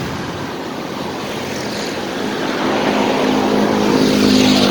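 A steady rushing noise with a motor's hum coming in about halfway through and growing louder toward the end, like an engine vehicle drawing near.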